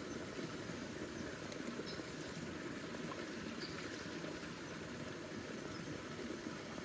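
A chilla (gram-flour pancake) cooking in ghee on a pan over a portable gas stove: a steady sizzle over the burner's even rushing noise.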